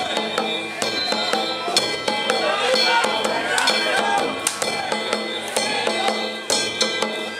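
Danjiri festival music played live on the float: a taiko drum struck in a quick rhythm with small metal gongs clanging and ringing over it, with voices calling in the background.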